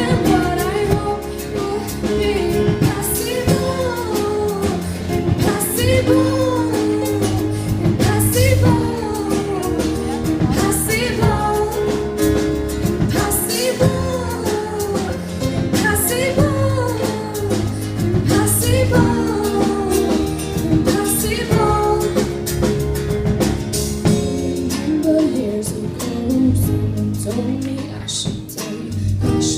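A pop song performed live by a singer with a band. The voice sings over held bass notes, guitar and a drum kit beat.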